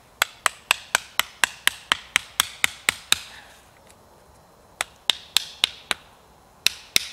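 Hatchet striking the top of a split wooden stake, driving it into the ground to brace a log: sharp knocks about four a second. A run of about a dozen, a pause of about a second and a half, five more, then another run starting near the end.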